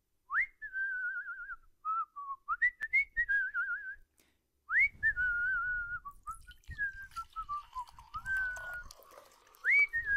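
A person whistling a wavering tune. Three phrases each open with a quick upward swoop to a high note, then waver and slide downward.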